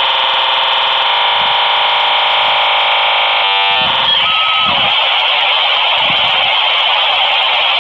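Dial-up modem handshake over a phone line. A dense chord of steady tones runs for about three and a half seconds, then a quick flutter of tones and a short beep come around four seconds in, followed by steady hiss of data noise.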